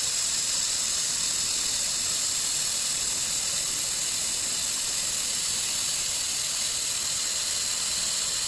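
Handheld 3 kW fiber laser welder running a weld on 5 mm stainless steel plate: a steady, high hiss with no breaks.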